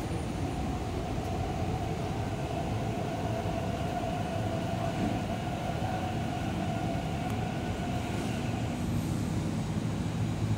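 An MTR East Rail Line electric train pulls into the platform and slows to a stop behind the platform gates. It runs with a steady whine that fades out about eight seconds in.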